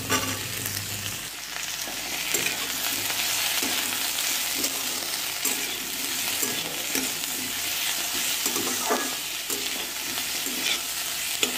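Chopped capsicum, onions and garlic sizzling in hot oil in a steel kadai, with a metal spatula scraping and stirring them around the pan every second or so. The capsicum pieces drop in right at the start.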